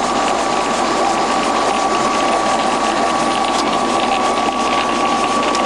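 Parkinson 3T milling machine's gearbox running under power feed, driving the knee upward: a steady mechanical running sound with a held whine and a continuous fine gear rattle.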